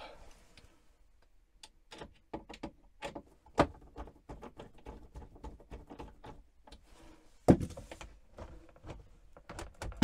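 Wooden cupboard door being fitted on its metal hinges: a string of small clicks and knocks as a screwdriver works the hinge screws, with two louder knocks about three and a half and seven and a half seconds in.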